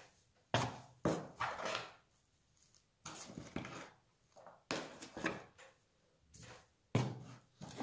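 A metal spoon scooping and stirring potting soil mixed with perlite and vermiculite in a plastic tray. The stirring comes as a string of short scraping rustles, roughly one a second, with short pauses between strokes.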